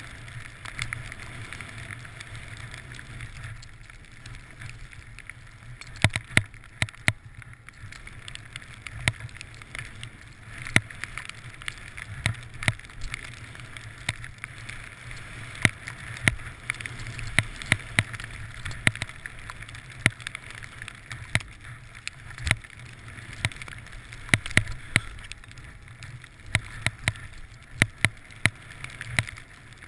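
Skis hissing steadily through deep powder snow during turns, with frequent sharp knocks about every second or so, often in twos and threes.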